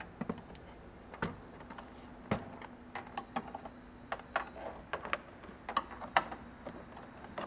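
Plastic factory clips popping loose as a Jeep Cherokee XJ door panel is pulled off the door: an irregular string of sharp clicks and snaps.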